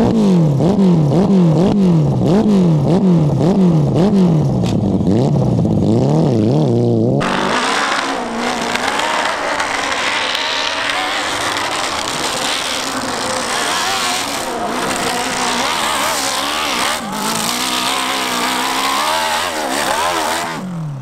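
Dirt bike engine revving up and down in quick repeated surges, about twice a second. About seven seconds in the sound changes abruptly to a rougher engine note over a broad hiss, its pitch still wavering up and down.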